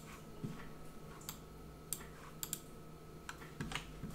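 Faint, irregular clicking of computer keys, about ten taps spread unevenly, over a low steady hum.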